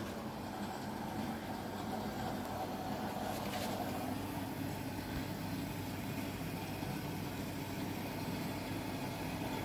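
LUX front-loading washing machine running a test wash: the motor turns the drum with water and clothes inside, a steady low running hum.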